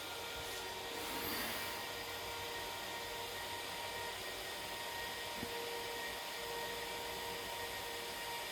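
Cooling fans of an HPE ProLiant DL380 Gen9 server running: a steady whir with several steady tones, rising a little in level near the start and then holding. The server has stopped on a memory fault: a load-reduced DIMM mixed in with registered DIMMs.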